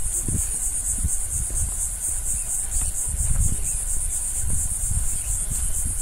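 High-pitched insect chorus, a steady buzz pulsing about five times a second, over an irregular low rumble.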